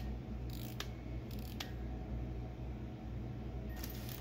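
A few light clicks and rustles as a small ceramic figurine music box is handled and turned over in the hands, over a steady low hum.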